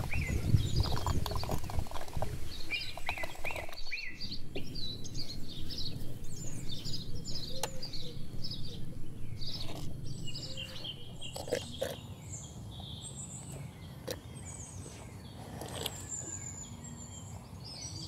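Cow drinking feed-laced water from a plastic bucket, a regular pulsing of sucks and gulps, loudest in the first few seconds and then quieter. Small birds chirp throughout.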